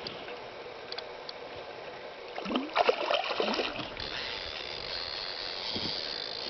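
Water sloshing and splashing against the side of a small boat while a hooked pike is played beside it, with a louder burst of splashing and knocks about two and a half seconds in, then a steady hiss.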